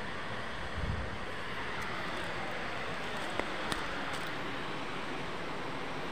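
Steady rush of flowing creek water. Two sharp clicks come about three and a half seconds in.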